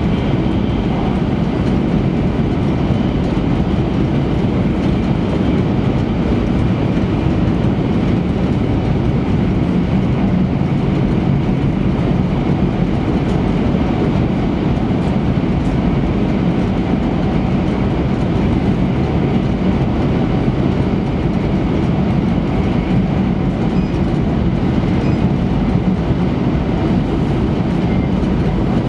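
Steady running noise heard inside an E3-series Shinkansen car at speed: an even, low rumble of the wheels on the track and the car body.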